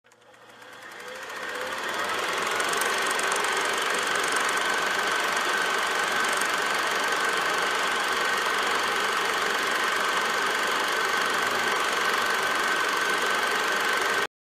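Film projector running with a steady mechanical clatter and a high whine. It fades in over about two seconds and cuts off abruptly near the end.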